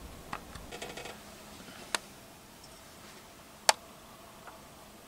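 A handful of sharp, isolated clicks at irregular spacing over faint background hiss, the loudest about three and a half seconds in: small handling noises from camera gear.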